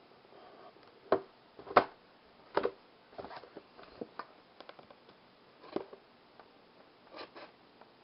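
Cardboard retail box with clear plastic packaging being handled and set on a wooden table: a few sharp knocks, the loudest about two seconds in, with light crackling and ticking between them.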